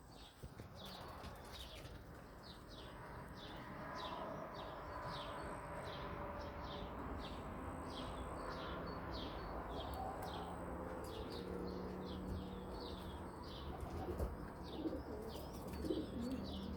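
Racing pigeons cooing, the coos building toward the end, over a short high chirp repeating about twice a second.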